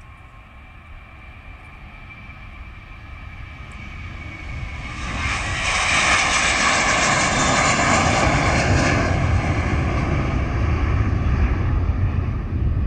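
Airbus A321-231's twin IAE V2500 turbofans at takeoff thrust, growing steadily louder as the jet rolls toward and past, loudest around lift-off about five seconds in. The sound then settles into a deep rumble as the aircraft climbs away.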